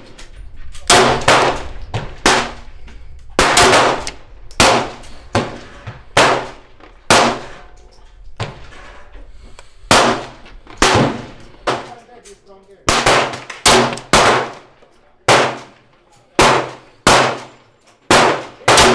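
Pistol gunfire: about twenty sharp shots at irregular spacing, sometimes two within half a second, each with a short ringing echo. The shots are a 9mm Glock fired shot by shot, mixed with shots from neighbouring shooters.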